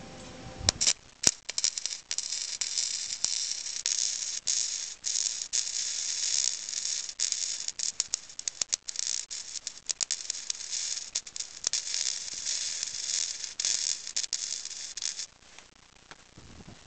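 Wire-feed welder arc crackling with irregular pops as a bead is run across the engine mount over metal that is not clean. It starts with a few sharp clicks about a second in and cuts off sharply after about fifteen seconds.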